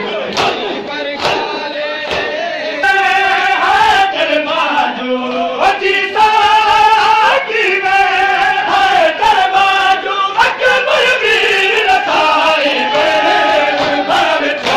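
A noha reciter chanting, joined by a crowd of mourners. In the first seconds, rhythmic chest-beating (matam) slaps come about once a second; from about three seconds in, the held, strongly pitched lines of the lament take over.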